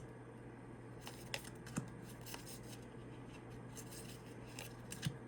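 Tarot cards being handled: faint scattered taps and soft swishes of cards slid and set down, over a low steady hum.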